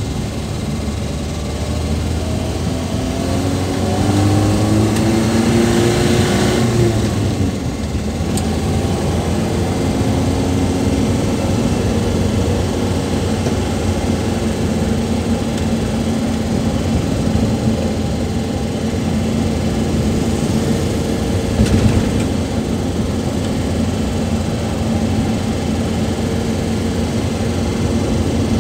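Suzuki Carry's engine heard from inside the cab while driving. Its pitch rises under acceleration, drops back with a gear change about seven seconds in, then climbs again and runs fairly steadily at cruising speed over road noise. A single short knock about three-quarters of the way through.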